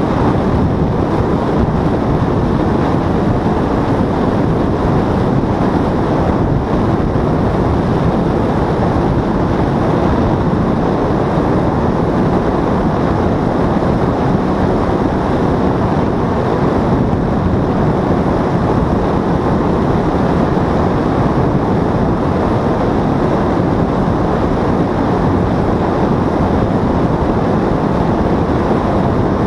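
Steady rush of wind across the microphone, mixed with a paramotor's engine and propeller running in flight, unbroken and even in level.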